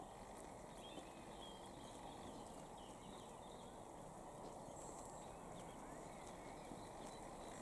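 Quiet open-field ambience: a steady low background rumble with faint, scattered bird chirps.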